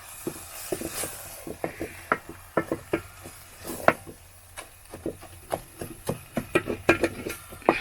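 A cooking spoon stirring and scraping sukuma wiki in a saucepan, making irregular sharp clicks and scrapes a few times a second.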